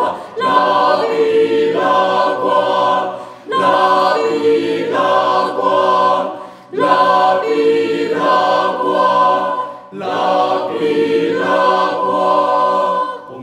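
Mixed choir singing in harmony, in four phrases of about three seconds each with short breaks between them.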